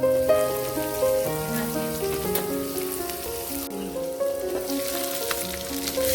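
Background instrumental music, a melody of held notes, over a faint steady hiss.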